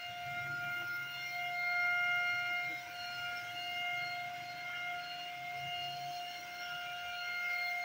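Handheld electric paint spray gun running while it sprays wood polish, its motor giving a steady high-pitched whine that holds one pitch.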